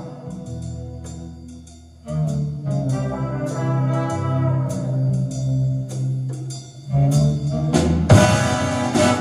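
Recorded instrumental music played over Klipschorn horn loudspeakers. Held notes fade out about two seconds in and a new sustained passage follows. About a second before the end, a louder, busier passage with percussive hits comes in.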